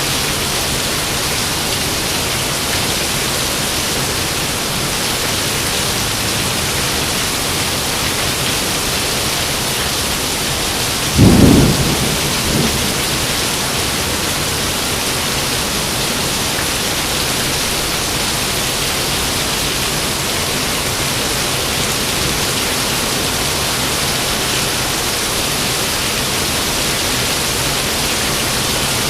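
Steady heavy rain with a single sharp clap of thunder about a third of the way in, fading over a second or so with a short after-rumble.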